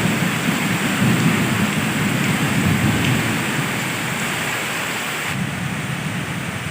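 Heavy tropical rain pouring steadily, with a low rumble underneath.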